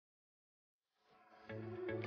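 Silence, then background music fading in about halfway through, with a few distinct struck or plucked notes.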